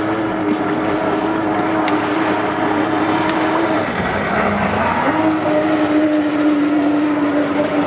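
Stand-up jet ski engine running at high, steady revs. It eases off and drops in pitch about four seconds in, then climbs back up to speed.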